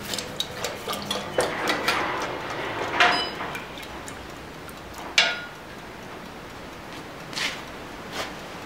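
Red-hot knife blade being quenched in a square steel-tube quench tank to harden it: a sizzle as it goes in, then the steel clinking and knocking against the tank's metal walls several times as it is worked up and down, the loudest knocks about three and five seconds in.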